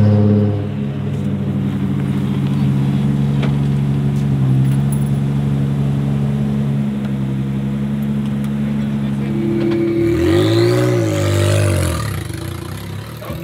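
Toyota Hilux rally car's engine idling steadily, then a brief rev that rises and falls in pitch about ten seconds in.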